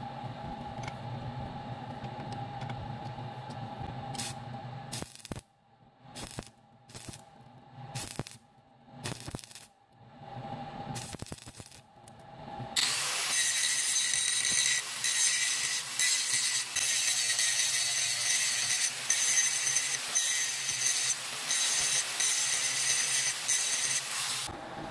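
Steady workshop hum, then a few short broken snatches of handling sound. About halfway in, a loud steady hiss with a high whine over it begins and runs for about twelve seconds before cutting off suddenly: a nut in a bench vise being arc-welded and then ground with an angle grinder.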